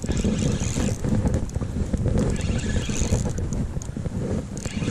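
Rumbling handling noise and knocks on a body-worn camera while a salmon is played on a spinning rod and reel, with three bursts of higher hiss, about a second each.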